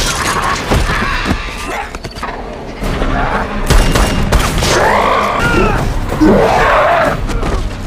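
Action film fight soundtrack: dramatic music under a run of sharp hits and impacts. About five seconds in, a zombie gives snarling, gliding screams.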